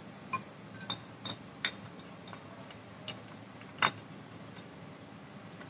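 Light metallic clicks and taps from starter-motor parts being handled and fitted together: the armature with its Bendix drive going into the drive-end housing. About six short clicks spread out, the loudest about two-thirds of the way through, a couple with a brief ring.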